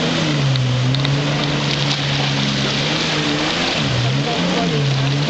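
138 hp Sea-Doo jet ski running hard, its engine note dropping twice and climbing again as it is throttled through turns, over a steady hiss.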